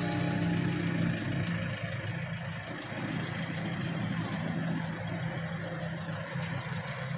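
A motor vehicle engine running steadily, a low even hum with a faint hiss of outdoor road noise.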